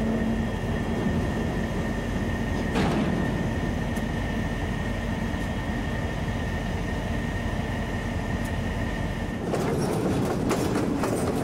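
Freight train passing close and slowing: the diesel locomotives' engines rumble with a steady high whine. About nine and a half seconds in, the whine stops and the cars follow with wheels clicking and clattering over the rail joints.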